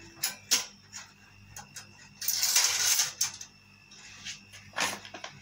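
Clinks and knocks of a glass mixing bowl and small dishes being handled on a countertop: a few sharp clicks, with about a second of loud rustling hiss near the middle.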